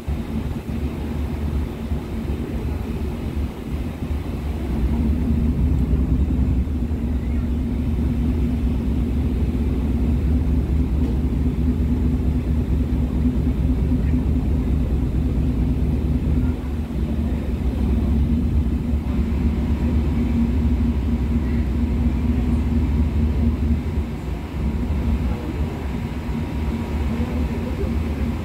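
Star Ferry's engine rumbling steadily with a low hum. It gets louder about five seconds in as the ferry comes in to berth at the pier.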